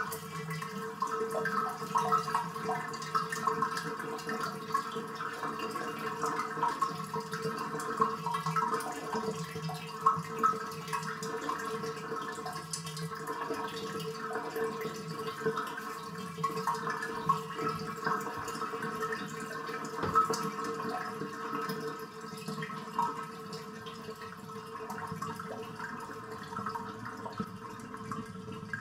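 Bathtub draining: water gurgling steadily down the drain, with a held throaty tone and a few louder gulps in the first half, settling a little quieter near the end.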